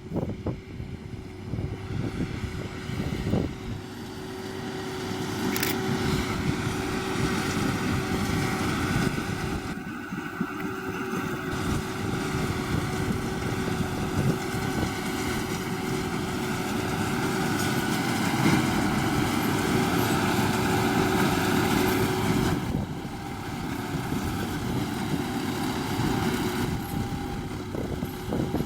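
John Deere 7530 tractor running under load while pulling a working Massey Ferguson 2270 large square baler. It grows louder a few seconds in and eases off again near the end.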